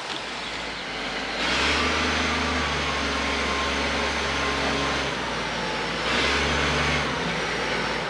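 Engine of a log loader with a grapple, revving up about a second and a half in, easing back, then revving again briefly near the end, with a thin high whine alongside.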